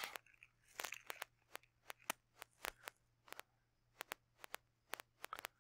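Faint, irregular clicks from a computer mouse's scroll wheel being turned, about twenty in all.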